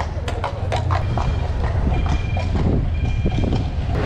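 Horse-drawn carriage in motion: the horse's hooves clip-clopping on the street, most clearly in the first second, over the steady low rumble of the carriage rolling. Three short high-pitched tones sound one after another midway.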